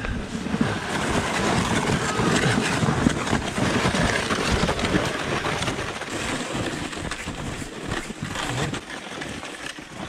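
Plastic sleds sliding fast down a snow trail: a continuous scraping rush of runners over snow with a low rumble, easing off a little over the last few seconds.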